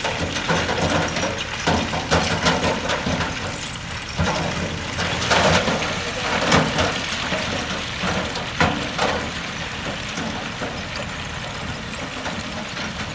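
Heavy earthmoving machine's diesel engine running steadily, with a few short bursts of rattling noise about five and a half, six and a half and nine seconds in.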